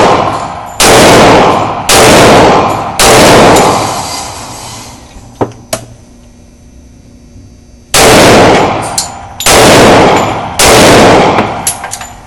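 Handgun fired six times in two groups of three, about a second apart, each shot very loud with a reverberant tail. In the pause between the groups there are two small, sharp clicks.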